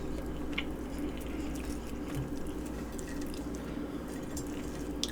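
Quiet, wet mouth sounds of food being chewed close to the microphone, with a few faint clicks, over a steady low hum.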